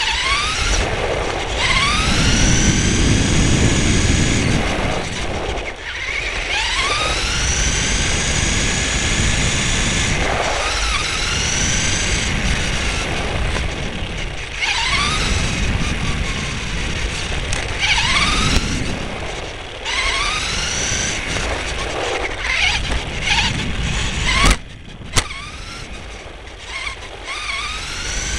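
RC car's motor and drivetrain whining high and rising in pitch again and again as the throttle is opened in bursts, over the steady rumble of its tyres on asphalt, heard from a camera mounted on the car. Two sharp knocks come a little before the end.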